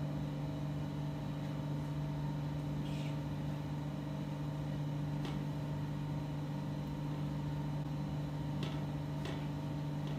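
Steady electric hum of running chocolate-kitchen machinery. A few faint light ticks come from a palette knife spreading a thin coat of tempered chocolate over the ganache slab and its metal frame.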